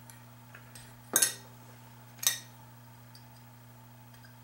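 Two sharp metallic clinks about a second apart, from metal parts being handled while an RC car work stand is put together, with a few faint handling ticks, over a steady low hum.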